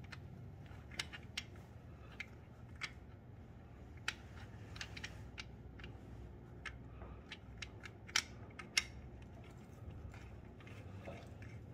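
Engine oil drain plug on a Suzuki Boulevard C109RT being threaded in by hand: faint, irregular small clicks, with two louder ones about eight seconds in.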